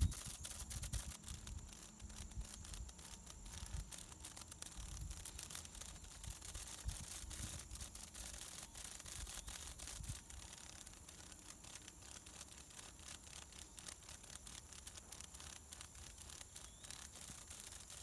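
A cicada held by a praying mantis, its wings fluttering in a faint, fast crackle of rasping clicks.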